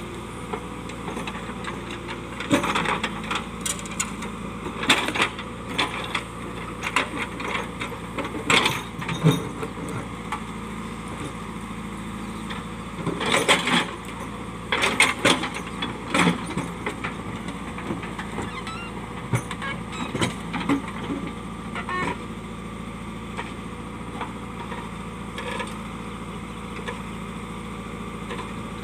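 The diesel engine of a JCB digger runs steadily while its bucket knocks, clanks and scrapes against rocks in the soil in irregular bursts. The knocking comes in two busy stretches in the first half, then thins out, leaving mostly the engine.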